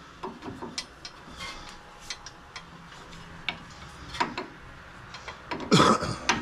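Ratchet wrench clicking in short irregular strokes as a tie rod end nut is tightened, with a louder metallic clank near the end.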